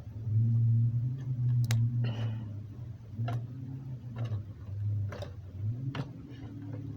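Stiffened glue slime being squeezed and pulled by hand, giving sharp clicks and pops about once a second over a steady low hum.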